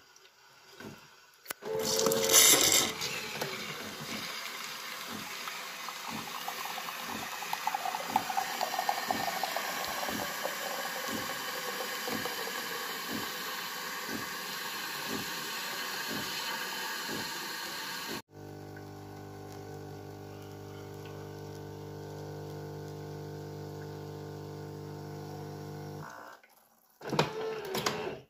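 Siemens EQ.6 plus s700 bean-to-cup coffee machine dispensing a milk coffee into a mug. It gives a hissing stream of frothed milk with a soft pulse about twice a second, then switches abruptly to a steady hum about two thirds of the way through.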